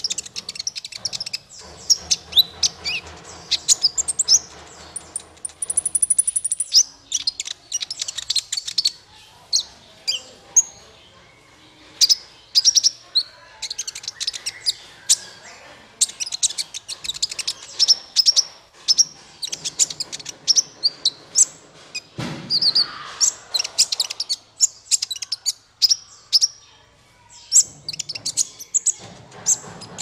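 Male kolibri ninja (konin, a sunbird) singing: rapid, high-pitched chirps and twittering trills in quick bursts, with short pauses between. About three-quarters of the way through there is one coarser, lower rasping note.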